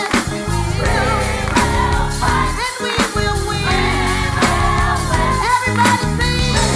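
Live gospel music: a lead singer and choir sing over band accompaniment with a steady bass line and regular drum hits.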